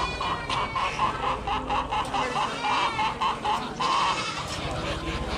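Caged chickens clucking in a steady, crowded din of poultry calls, made up of many short notes repeated a few times a second.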